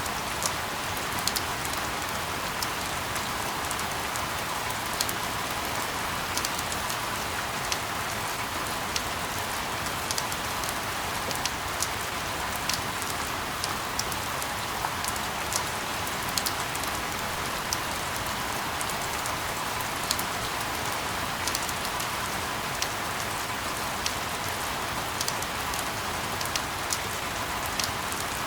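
Steady rain: a dense, even hiss with scattered sharp ticks of individual drops landing.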